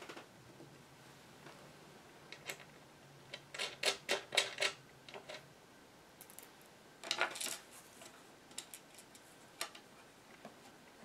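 Handling noise from the front panel of a 1924 Chelsea Model 122 radio and its small metal fittings: scattered light clicks and clatter, with two short flurries of clicking about four and seven seconds in.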